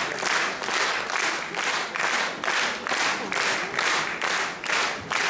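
A concert audience clapping in unison, a steady rhythm of about three claps a second.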